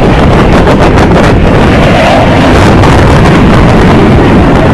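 Blue Angels F/A-18 Hornet jet flying past low overhead. Its engine noise is steady and very loud, loud enough to overload the microphone.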